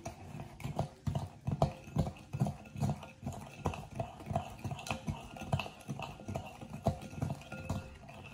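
A metal spoon stirring a honey-garlic sauce in a glass mixing bowl, clinking and scraping against the glass about three times a second.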